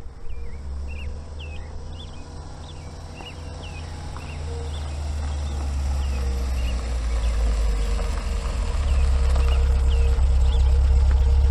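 Sound-effect ambience of small birds chirping, short rising chirps about twice a second, over a deep low rumble that grows louder through the second half.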